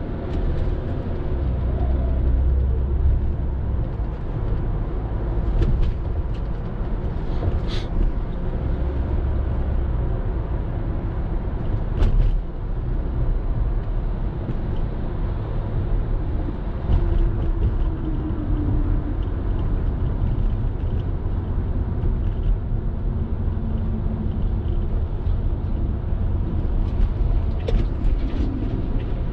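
Steady engine and road-tyre rumble of a car driving, heard from inside the cabin, with a single sharp knock a little before halfway.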